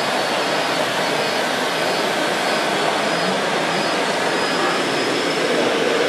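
A steady, even whirring hiss from radio-controlled construction models running, with a scale tipper truck and trailer driving slowly over gravel.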